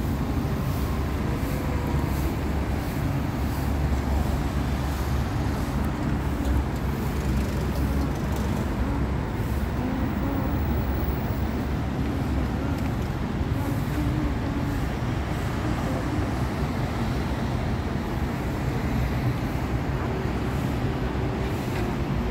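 Steady road traffic: cars and motorcycles driving past, their engines and tyres making a continuous rumble.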